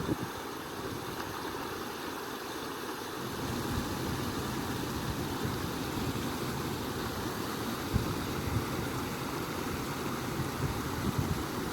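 Flowing stream water rushing steadily, with a soft low rumble joining in a few seconds in.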